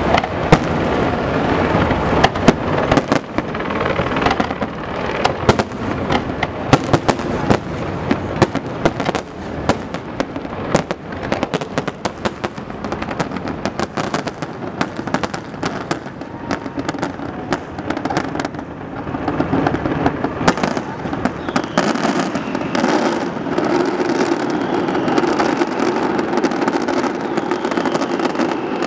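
Aerial fireworks shells bursting over water in a dense barrage: many sharp bangs in quick succession over a continuous rumble and crackle.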